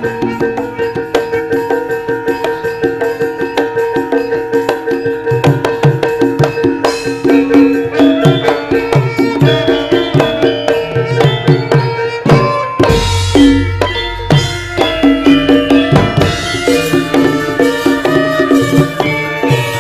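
Javanese gamelan playing: bronze metallophones struck with mallets in a fast, even rhythm over hand drums, with a deep low stroke about two-thirds of the way through.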